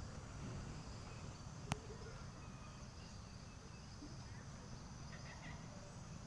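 Faint outdoor ambience: insects chirping steadily over a low rumble, with one sharp click just under two seconds in.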